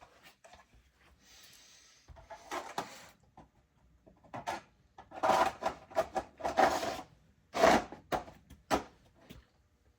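Objects being handled: irregular knocks, scrapes and rubbing, busiest and loudest in the second half, with a short hiss about a second in.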